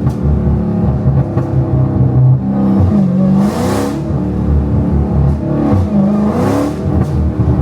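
Catless Dodge Hellcat's supercharged 6.2-litre HEMI V8 accelerating hard, its pitch climbing and dropping sharply twice as it shifts, with short rushes of noise as it pulls again.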